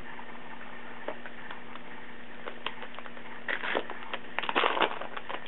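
Trading cards being handled, with scattered light clicks and then two short rustling bursts, the second louder, about three and a half and four and a half seconds in, over a steady low electrical hum.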